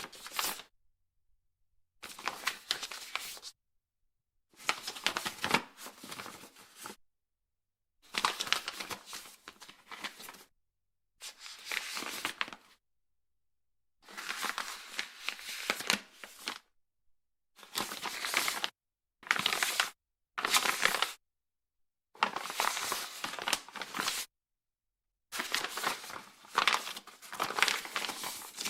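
Paper pages being turned, one page turn after another: about eleven separate dry rustling sweeps, each a second or two long, with dead silence between them.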